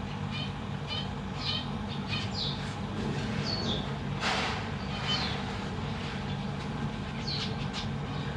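Zebra finches giving short, high, downward-sliding chirps over a steady low hum. About four seconds in there is a brief, louder rushing noise.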